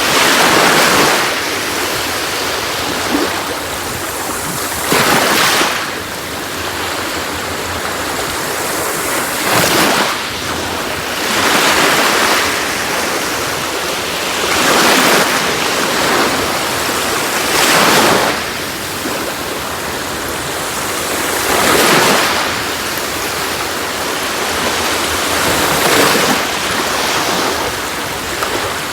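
Sea waves breaking and washing on the shore: a surge of surf about every three to four seconds over a constant hiss of moving water.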